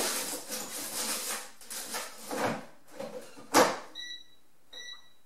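Clatter of an air fryer basket being handled, then slid home with a sharp clunk about three and a half seconds in. Two short beeps from the air fryer's touch panel follow as it is set.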